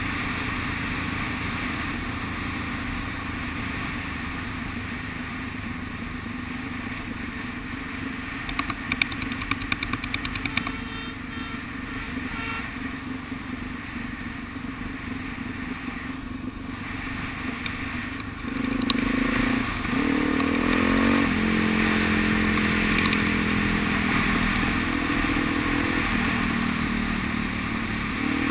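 Motorcycle engine and wind rush picked up by a helmet-mounted camera while riding. About a third of the way in there is a short patch of clatter; about two-thirds in the engine grows louder as the rider accelerates, its pitch rising and then holding a steady higher note before stepping down near the end.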